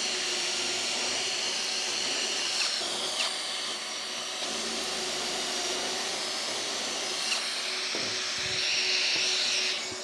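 Cordless drill boring pocket holes into a plywood panel through a pocket-hole jig, over the steady running of a dust extractor drawing through a hose on the jig. The drilling grows louder near the end.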